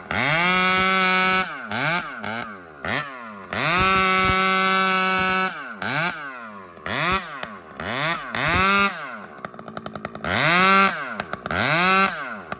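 Two-stroke chainsaw with an aftermarket muffler, free-revving off the wood. It is held briefly at full throttle, screaming at a high pitch, then blipped up and down in quick succession and let back to idle before revving again. The screaming with this muffler is taken as the sign that the carburettor needs richening.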